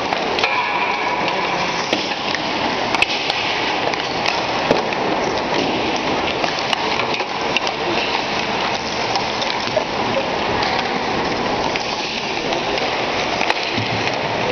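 Ice rink during a hockey warm-up: a steady wash of skate blades on the ice and arena noise, with scattered sharp clacks of pucks struck by sticks and hitting the boards and net. Faint voices sit in the background.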